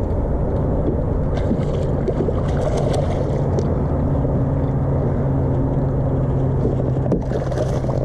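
Hobie Outback kayak moving across choppy water: a steady rush of wind and water against the hull, with a steady low hum underneath.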